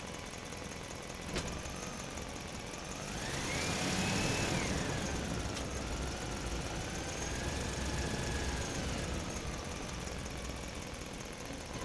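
A small motor runs steadily with an engine-like rumble. Its whine rises in pitch about three seconds in, falls back a second or two later, then wavers at a lower pitch.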